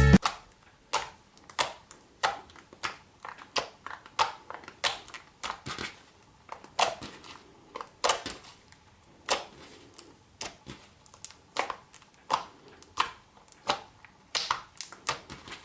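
Hands squeezing and pressing slime, making an irregular string of sharp clicks and pops from trapped air, about one or two a second.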